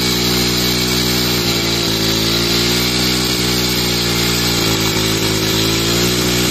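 Honda CD 70 motorcycle's small single-cylinder four-stroke engine running steadily under load, driving a tubewell water pump by belt, its speed wavering slightly a couple of times.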